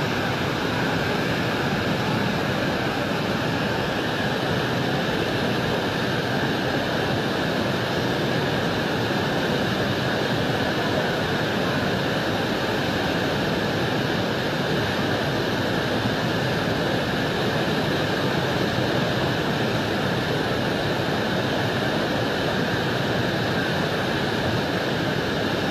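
Steady rushing of a river in violent flood, a fast muddy torrent carrying debris.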